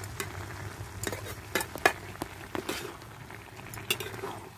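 Metal spatula scraping and clinking against an aluminium pan in irregular strokes as sliced radish and potato are stirred to mix in the spices, over a light sizzle of frying.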